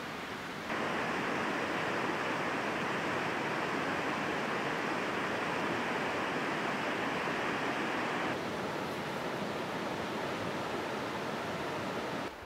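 Steady rushing outdoor noise, such as moving water or wind in the forest, with no distinct events. It steps up in level about a second in and drops back somewhat near eight seconds.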